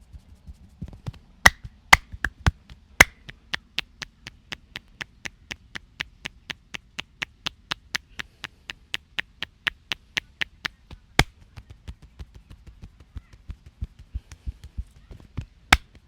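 Percussive massage: hands tapping in a quick, even rhythm of about four sharp strikes a second. There are several much louder cracks near the start, one about eleven seconds in and one near the end. The tapping grows fainter after about eleven seconds.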